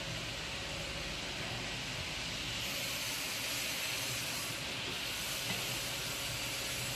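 Automatic pancake and spring-roll wrapper machine running: a steady hiss with a faint even hum underneath, growing a little brighter about three seconds in.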